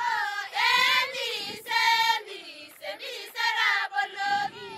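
A group of Maasai women singing together in short, loud phrases with brief breaks between them.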